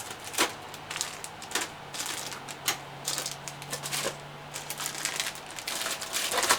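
Plastic model-kit parts and sprues being handled and shuffled: irregular light clicks, taps and rustles.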